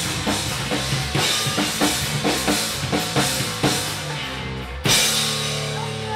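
Live rock duo playing: a drum kit beats out a steady rhythm over bass-heavy chords, ending on a final loud crash hit about five seconds in. After the hit a held chord rings on.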